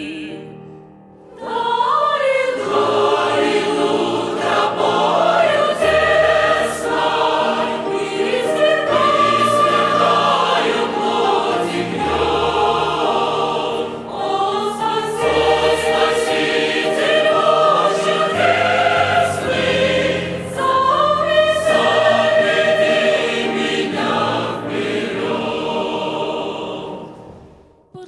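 Church choir singing a hymn in several parts. The singing breaks off briefly about a second in, then continues and dies away near the end.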